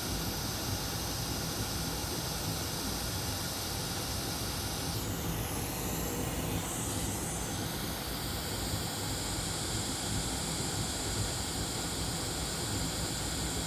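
A steady hiss of continuous background noise, with a brief change in its higher part about five seconds in.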